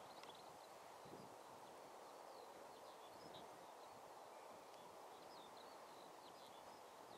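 Near silence: faint outdoor background with small birds chirping now and then.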